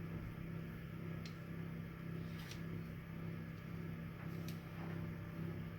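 Steady low hum in a kitchen, with a few faint, brief scratches of a blade scoring an X into the top of a round loaf of bread dough.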